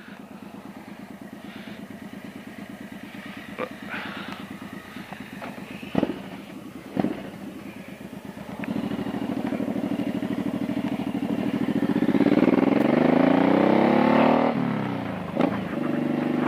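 Motorcycle engine running at a low, steady idle with two sharp clicks, then pulling away: it gets louder partway through, the revs rise, drop suddenly at a gear change, and climb again.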